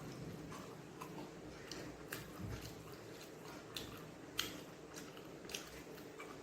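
A person chewing a mouthful of chicken fried rice, with faint, irregular wet mouth clicks and smacks; one click a little louder about four seconds in.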